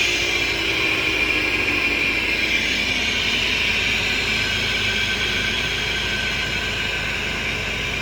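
BMW X3 E83 on the move, with the whine and drone of a failed rear differential and a worn right-rear wheel bearing over steady road noise, the tones sinking slowly in pitch.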